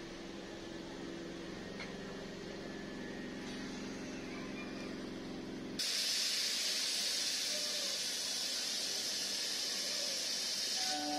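Suburban EMU local train drawing to a stop at the platform: a low steady hum, then about six seconds in a loud hiss of compressed air bursts out suddenly and keeps going, typical of the air brakes venting as the train halts.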